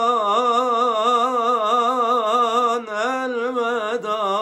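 A solo male voice singing a Turkish ilahi unaccompanied, drawing out a long ornamented melisma with a quavering, turning pitch. A brief breath comes about three seconds in, then he sings the word 'Ramazan'.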